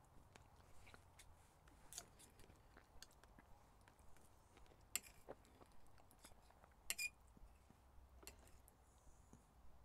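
Faint, scattered clicks and scrapes of a knife and fork on a plate as steak is cut and eaten, with sharper clinks about five seconds in and twice near seven seconds.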